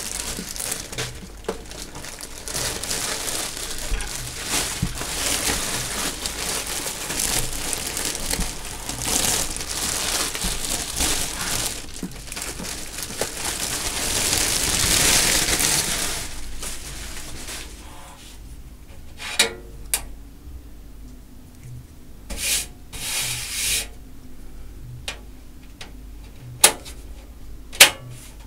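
Clear plastic bag rustling and crinkling as it is handled and pulled off a desktop computer case, loudest about two-thirds of the way through. After it stops come a few sharp knocks as the bare case is handled.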